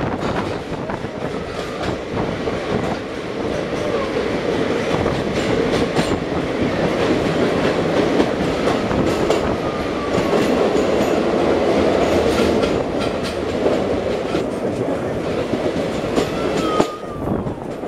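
Passenger train running through a tunnel: a loud, steady rolling roar of wheels on rail, echoing off the tunnel walls, with frequent sharp clicks over it. Near the end the roar briefly drops as the coach comes out of the tunnel into the open.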